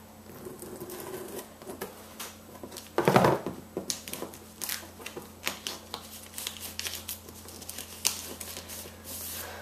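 Scissors snipping into a plastic packing-list envelope stuck on a cardboard box, then a run of crinkling and crackling plastic and paper as the envelope is pressed open and the packing list is pulled out. One louder bump about three seconds in.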